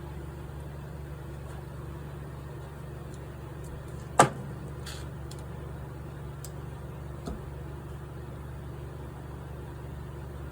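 Steady low mechanical hum, with one sharp click about four seconds in and a fainter knock about three seconds later.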